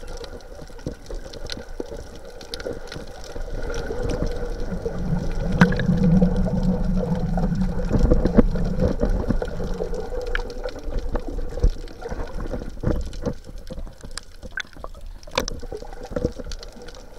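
Underwater sound while snorkeling: a muffled rush of moving water with many scattered sharp clicks. A louder low rumble swells from about four seconds in and eases off around ten seconds.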